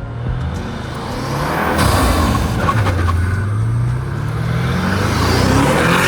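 Tuned Mercedes-AMG G 63 V8 engine accelerating, its note climbing steadily in pitch through the second half, over road and wind noise.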